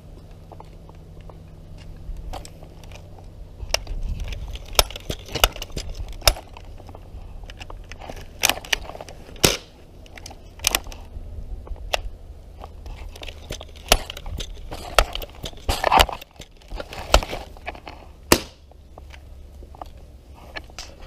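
Handling noise from a wrist-worn action camera: cloth rubbing and knocking against the housing, a run of irregular crackles and clicks over a low steady rumble.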